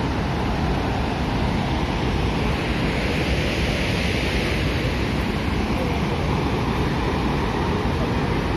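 Heavy floodwater rushing steadily down a large dam's spillway from its fully opened crest gates, a continuous even roar of falling water and spray.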